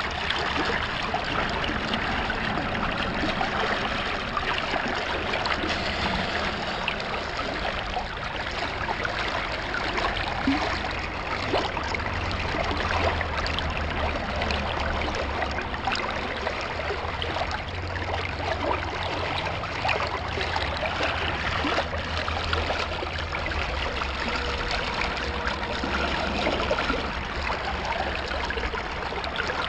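Shallow creek water flowing and trickling steadily, with a low rumble joining in through the middle stretch.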